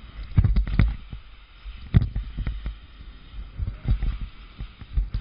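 Skis turning on snow during a steep descent, with irregular dull thumps and knocks as turns and pole plants jolt the skier's own camera over a light hiss of moving air.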